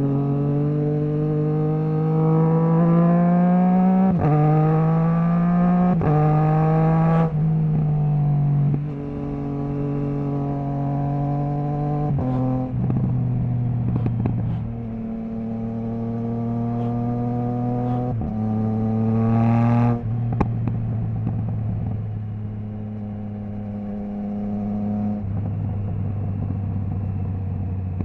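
Triumph Trident 660 inline three-cylinder engine through a Zard stainless full exhaust with the baffle removed, under way. It pulls hard through the gears in the first seven seconds, the pitch climbing and dropping sharply at each of three quick upshifts, then runs on at steadier revs with the throttle rolled on and off.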